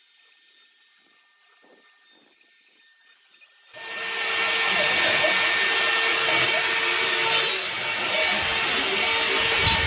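CNC router spindle running and cutting a wooden pattern. It is faint at first, then suddenly loud about four seconds in: a dense cutting noise with a steady whine.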